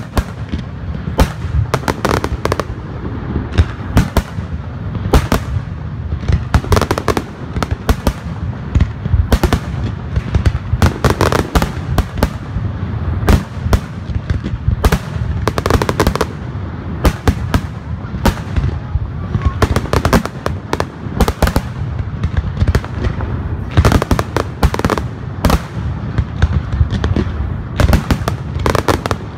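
Aerial firework shells bursting in quick succession: a dense run of sharp bangs, several a second, over a steady low rumble.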